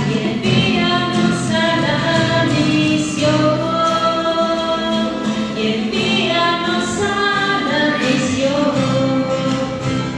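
A woman singing a Catholic communion hymn in phrases of held notes, accompanied by strummed acoustic guitar.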